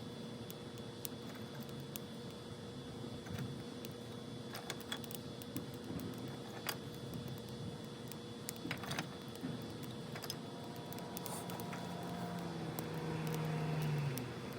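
Scattered sharp clicks and crackles. Near the end a vehicle's engine hum grows louder, peaks, then drops away: a car pulling up in a driveway.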